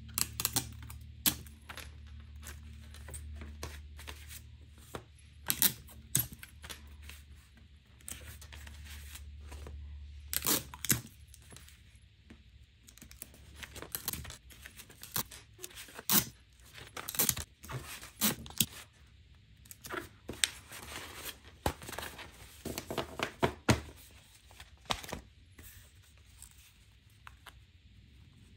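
Printed paper sheets being handled and folded, and clear tape pulled off a desktop tape dispenser and torn on its cutter: an irregular string of crisp rustles, taps and rips, busiest in the second half.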